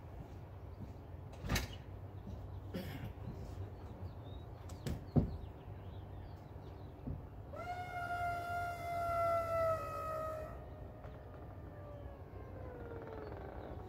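Two sharp clunks from the convertible top's windshield header latches being released, then the electric power-top motor whining steadily for about three seconds as the top lifts. The whine cuts off abruptly, and fainter tones falling slowly in pitch linger for a few seconds after.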